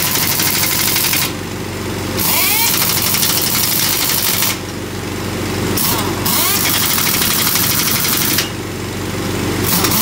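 Pneumatic impact wrench hammering on the lug nuts of a semi-trailer's dual wheel during a flat-tire change, running in bursts of one to two seconds with short pauses between, four or five times. A steady engine hum from the air compressor's engine runs underneath.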